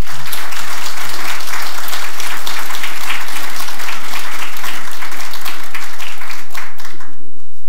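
Audience applauding: many hands clapping at once, then the applause dies away near the end.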